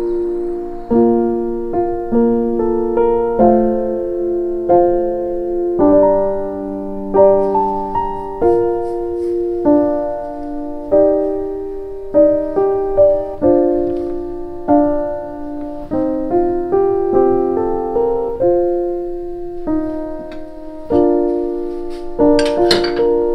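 Background piano music of struck notes and chords, with a brief noisy sound near the end.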